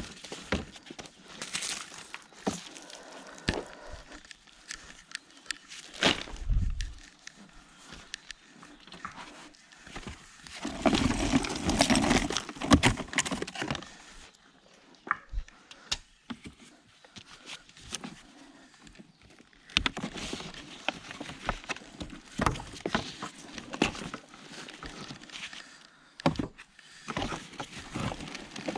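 Rummaging through a builder's skip: irregular knocks and clatter of debris being moved, with longer stretches of scraping and shifting about ten seconds in and again near twenty seconds.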